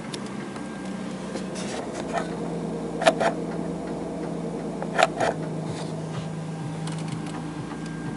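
Mazda 323F (BA) with a KL-ZE 2.5-litre V6 idling steadily, heard from inside the cabin. Two sharp double clicks sound about three and five seconds in.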